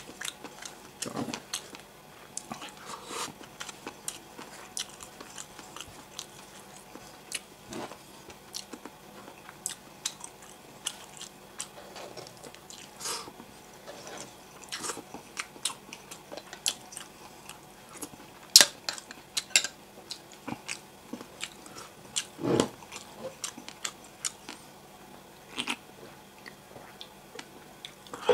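Close-up eating sounds: chewing and crunching, heard as scattered short, crisp clicks at an irregular pace, a few louder ones about two-thirds of the way through.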